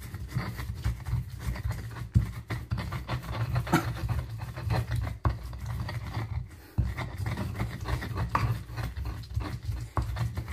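Pestle grinding ginger in a mortar (Indonesian ulekan and cobek): continual rubbing and scraping with irregular knocks of the pestle, easing off briefly about two-thirds of the way through.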